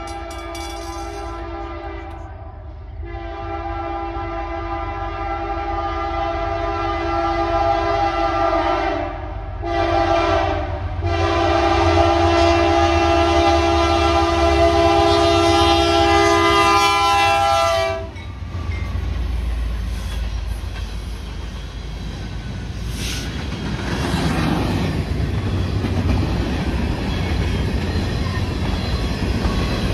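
BNSF diesel locomotive's multi-note air horn sounding the grade-crossing signal, long, long, short, long, for about 18 seconds. The locomotive then rumbles past, and grain hopper cars roll by with their wheels clattering over the rail joints.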